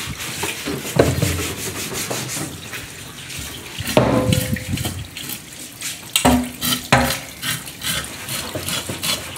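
Tap water running into a stainless-steel sink while a large knife scrapes along a big fish, with repeated short scrapes and knocks over the water.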